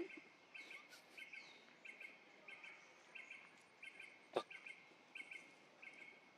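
Faint forest ambience: a short high chirp repeating evenly about every two-thirds of a second, with a single sharp click about four seconds in.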